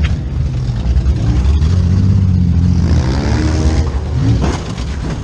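Demolition derby car engine running loud and close, revving up and down a little past halfway through.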